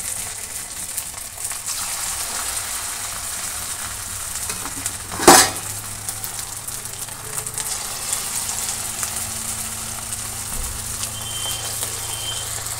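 Semolina vadas deep-frying in hot oil: a steady hissing sizzle, with one sharp, loud crack about five seconds in.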